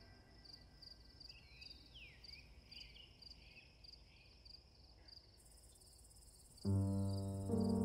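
Crickets chirping in an even rhythm, about two or three chirps a second, with a few faint whistling calls about two seconds in. Near the end, music comes in with a loud, held low chord.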